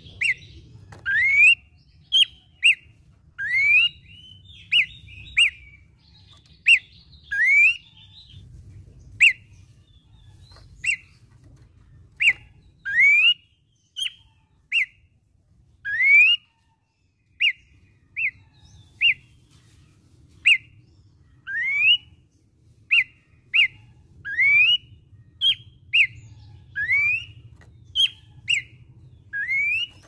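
Horsfield's babbler (pelanduk semak) singing a long series of short, clear whistles, about one or two a second. Many of the notes are quick rising slurs, mixed with flat single notes.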